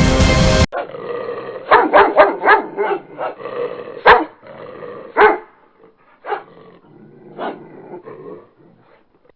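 Music that cuts off abruptly under a second in, then a dog barking: a quick run of about six barks, then single barks spaced about a second apart, the loudest around the middle.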